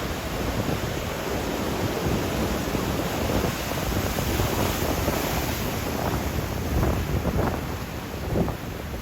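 Surf breaking on a beach as a typhoon swell builds, with wind buffeting the microphone in gusts.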